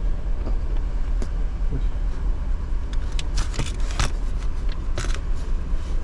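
A 2015 GMC Yukon's 6.2-litre V8 idling with a steady low rumble while it misfires on cylinder 3. A few sharp clicks and taps come between about three and five seconds in.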